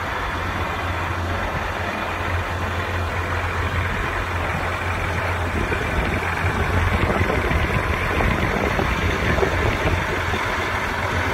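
Case IH STX375 four-wheel-drive tractor's diesel engine idling with a steady low hum, getting a little louder from about halfway through.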